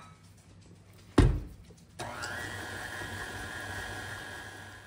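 A KitchenAid stand mixer switches on about two seconds in and runs steadily with a motor whine, kneading a wet bread dough with cranberries and walnuts. Its sound fades near the end. A single dull thump comes about a second in, before the mixer starts.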